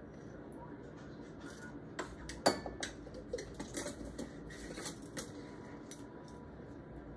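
Measuring spoon clinking against a small glass jar, then the jar's lid being put back on: a run of light clicks and clinks with one sharp clink about two and a half seconds in.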